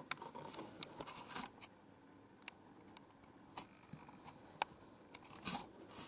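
A handful of faint, irregularly spaced small clicks and taps, the sharpest about two and a half seconds in.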